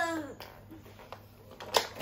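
A child's voice trailing off, then a few small clicks and one sharper click near the end: small plastic toy figures being handled and set down on a wooden floor.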